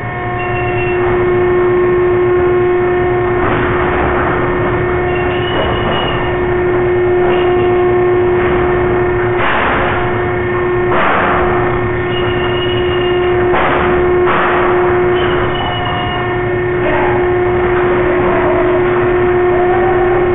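Steady, loud hum of slaughterhouse machinery holding one droning tone, broken by several sudden metal bangs and clatters from the stun box and pen gates, with a few brief high squeals.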